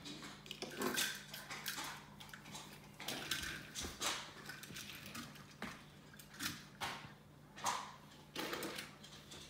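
Small toy trains and cars clicking and clattering against each other and on a hardwood floor as they are handled and lined up, in irregular short knocks, over a faint steady hum.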